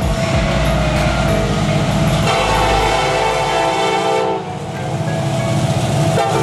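CSX ES44AH locomotive's Nathan K5HLL five-chime air horn sounding a salute: one long blast, a brief break about four seconds in, then a second blast. The diesel locomotives rumble underneath as they pass.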